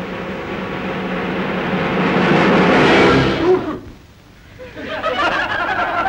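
A loud rushing swell of noise with held musical tones, building for about three and a half seconds and then cutting off sharply, in a 1930s film's soundtrack. About a second later a crowd breaks into excited chatter and laughter.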